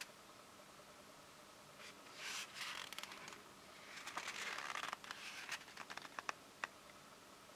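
Hands handling a tablet, sliding and rubbing over its plastic case as it is turned over, with a few light clicks and taps a little over two-thirds of the way in.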